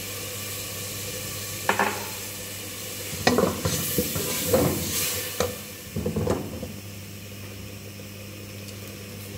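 A wooden spoon stirring a tomato-and-spice masala in a pot, scraping and knocking against the pot for a few seconds in the middle, over a steady sizzle of the masala frying with a little water just added so the spices don't stick. A single knock comes a little before the stirring.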